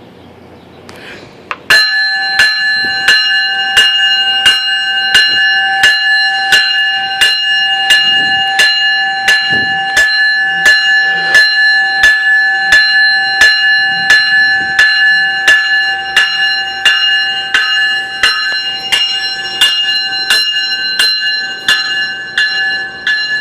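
GO Transit commuter train's bell ringing in a steady, rapid series of strikes as the train departs the station, starting about two seconds in.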